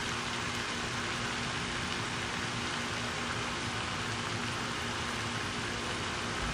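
Steady, even outdoor background hiss with a faint low hum underneath, unchanging throughout; no distinct event stands out.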